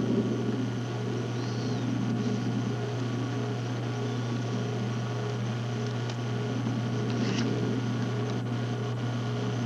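A steady low electrical or mechanical hum with background hiss, unchanging throughout.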